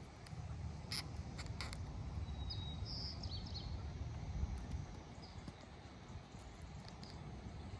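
Low wind rumble on the microphone outdoors, with a few short bird chirps about three seconds in and a few faint clicks in the first two seconds.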